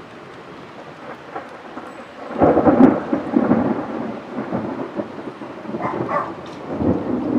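Thunder from a cloud-to-ground lightning strike over steady rain: a sudden loud clap about two and a half seconds in, then a rolling rumble that swells again several times.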